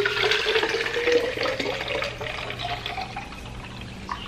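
Water pouring from a plastic pitcher into a plastic chicken-waterer bottle, a steady splashing rush with a gurgling tone that rises in pitch as the bottle fills. It is loudest at first and eases off after about three seconds.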